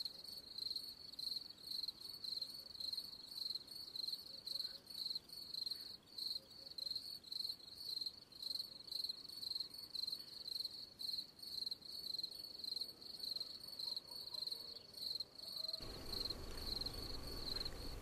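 Crickets chirping in a steady, even rhythm of about three high chirps a second. A low hiss joins in near the end.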